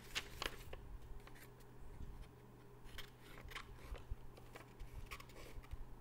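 Scissors cutting through a sheet of paper: a scattered series of short, faint snips.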